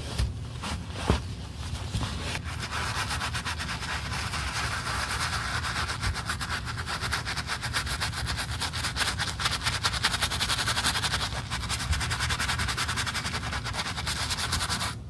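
Wooden-handled bristle brush scrubbing lather into a black leather high-heeled shoe, in rapid repeated strokes. It starts about two and a half seconds in, after a quieter stretch of cloth wiping with a single sharp knock about a second in.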